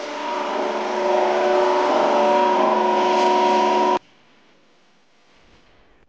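Cyclean engine-wash unit pumping water at pressure through the nozzles of the engine-wash ring adapters in a test flush: a loud spraying hiss with several steady tones, which cuts off suddenly about four seconds in.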